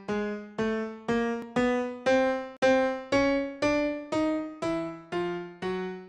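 A synthesized grand piano sounds notes in pairs about twice a second, each note struck and fading, the pitches stepping upward as a Shepard-tone scale, meant to give the illusion of a pitch that rises forever. A brief break about two and a half seconds in, where the loop starts over.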